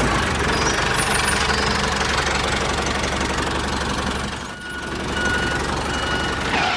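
DIY mini tractor's small engine running steadily after starting up, easing off briefly about four and a half seconds in.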